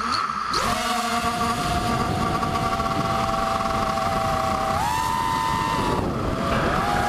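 Brushless motors of a 250-size FPV quadcopter (Cobra 2204 2300KV, Lumenier 5x4x3 props) whining over a rush of wind and prop wash. The pitch rises about half a second in, holds steady, steps up near the five-second mark, dips a second later and climbs again near the end as the throttle changes.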